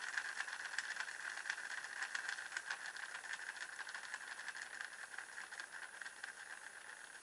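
A toy car's small electric motor and plastic gears whirring with a fast rattle, running on its charged supercapacitor with no light on the solar panel. The sound fades gradually as it runs.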